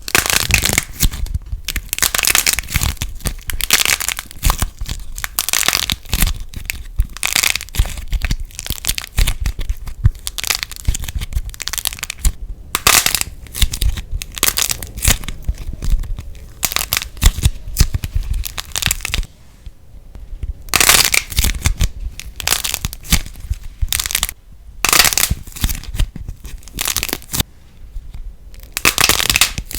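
Light plasticine being squeezed, stretched and pulled apart by hand, crackling and popping in dense irregular bursts, with a short lull about two-thirds of the way in.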